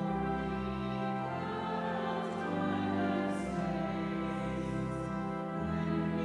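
Slow hymn music in long held chords, its bass note changing about once a second.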